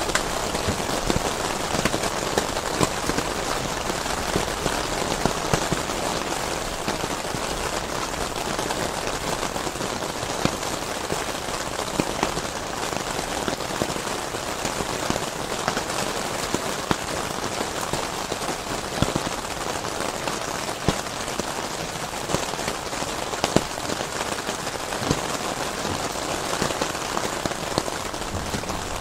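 Thunderstorm rain falling steadily and heavily, with many sharp hits of single drops close by.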